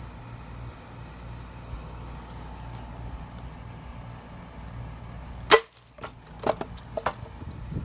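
A BB gun fires once, a sharp crack about five and a half seconds in, followed by a few lighter clicks. Before the shot there is only a steady low hum.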